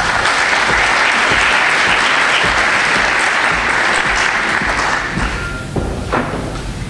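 Audience applauding, the clapping dying down about five seconds in.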